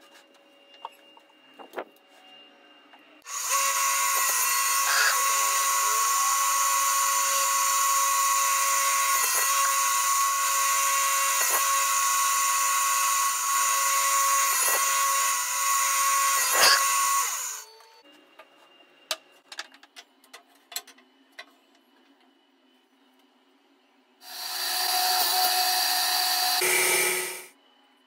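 Shop-made table saw switched on and running steadily for about fourteen seconds while pine strips are crosscut at 45 degrees, then cut off. Light knocks of wood being handled follow, and near the end a second power tool runs for about three seconds and winds down in pitch as it stops.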